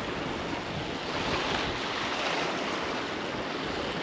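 Steady wind noise on the microphone over the rushing wash of rough water in tidal overfalls around a small boat.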